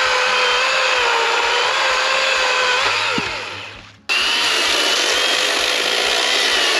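Greenworks Pro 80V brushless cordless chainsaw running at full speed, cutting wood with a steady electric whine. About three seconds in it winds down with a falling pitch as the trigger is released, then is back at full speed just after four seconds and cuts off sharply near the end.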